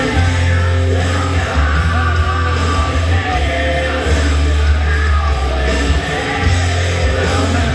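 Loud rock music with a singing voice over a heavy bass line.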